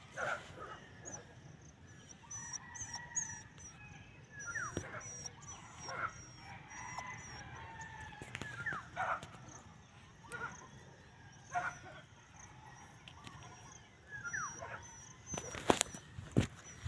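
A puppy giving short yelps and whimpers now and then, with two sharp knocks near the end.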